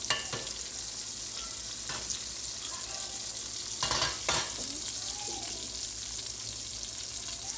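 Salmon frying in hot oil in a pan, a steady sizzle with scattered crackles as the skin crisps, and a louder spell of spattering about four seconds in.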